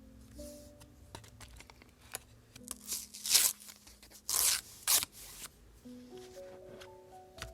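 Scissors cutting paper: a run of snips, faint at first and loudest from about three to five and a half seconds in, over soft background music with slow sustained notes.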